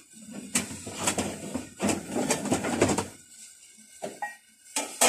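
Rustling and knocking of kitchen things being handled during cooking, dense for the first few seconds, then a few sharp clicks near the end.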